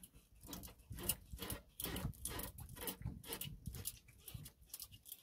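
A fishing handline being wound by hand onto a round spool: a quick run of faint strokes, about three a second.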